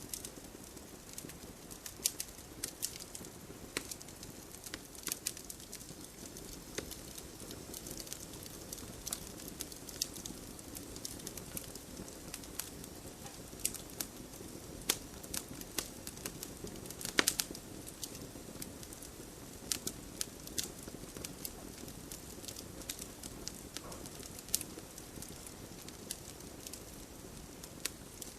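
Wood campfire burning with a soft steady hiss and irregular sharp crackles and pops, one louder cluster of pops about two-thirds of the way through.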